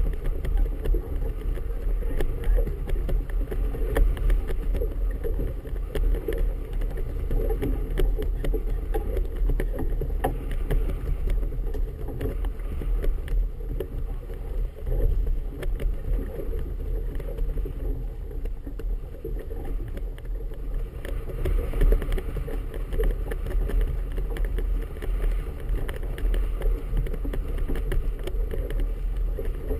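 Steady wind buffeting a GoPro camera on a boat in a 10–15 knot breeze, with choppy water slapping the hull and small knocks now and then.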